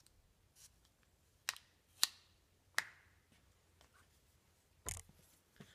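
Four sharp clicks and a few faint ticks as a copper-clad circuit board and its vinyl-backer transfer paper are handled, the paper being peeled off the board.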